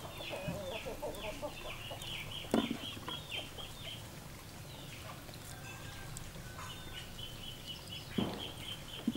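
Chickens clucking, with runs of short, high, falling chirps repeating a few times a second. Two sharp thumps, one about two and a half seconds in and one near the end.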